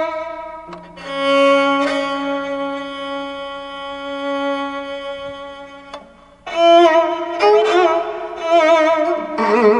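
Solo bowed string melody in a fusion track: one long held note with a light vibrato for about five seconds, then after a short break a run of shorter notes with a wider, wavering vibrato.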